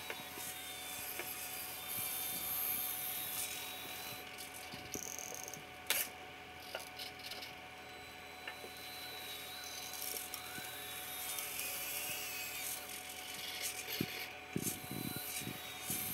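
Plastic prototype linkage of an RC CAT 906 wheel loader model being worked: plastic parts rubbing and clicking over a faint steady mechanical whine. A sharp click comes about six seconds in, and a run of small knocks near the end.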